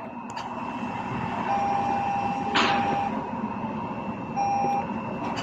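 2014 Toyota Avalon engine cranking on the starter without firing, a steady rumble, while the car's warning beep sounds twice, one long tone and one short. It won't start because the engine gets no fuel: the fuel pump control module has failed.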